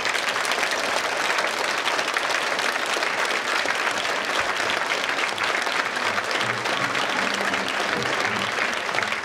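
Crowd applauding: dense, steady clapping from the audience and the people on stage.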